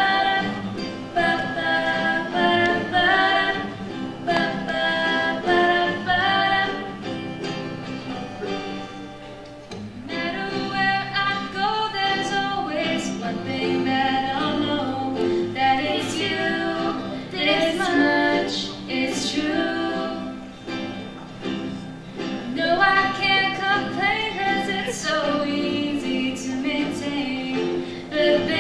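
Two female voices singing a gentle song, accompanied by a plucked acoustic guitar and a ukulele.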